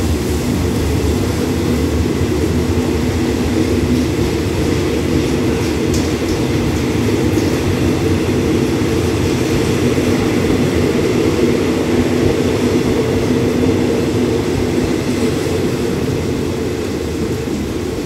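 Passenger train's coaches rolling past the platform as it pulls out, a steady rumble of wheels on rail mixed with falling rain, fading a little near the end as the train draws away.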